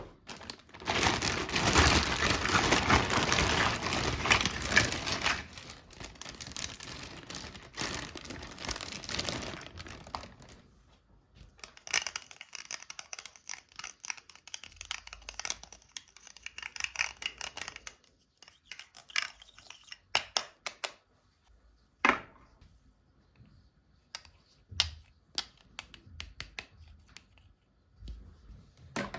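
Plastic and paper toy packaging being crinkled and torn open: a dense, loud crackle for the first few seconds, then lighter crinkling, followed by scattered clicks and taps.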